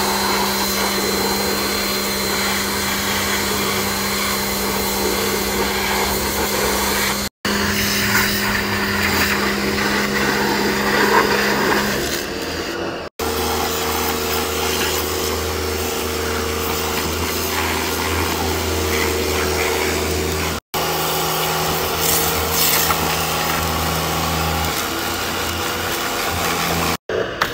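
Pressure washer running with a steady motor hum while its jet sprays water over a dirt bike's frame and wheels, broken by a few brief cuts.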